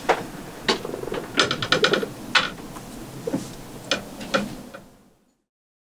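Handling noise from a camera being moved: separate sharp clicks and knocks, with a quick rattling run of about six clicks near two seconds in, before the sound fades out.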